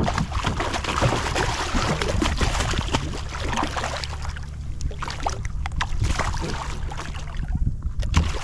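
Tautog splashing and thrashing at the surface against a kayak's side as a hand reaches into the water to grab it, a run of irregular splashes under a steady low rumble.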